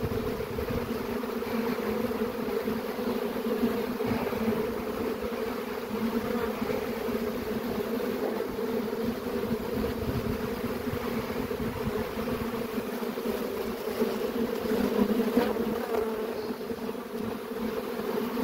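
A swarm of honeybees in flight: a dense, steady buzzing hum of many wings, unbroken throughout.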